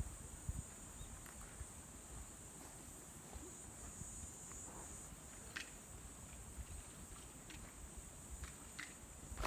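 Steady, high-pitched chirring of crickets, with a few faint clicks.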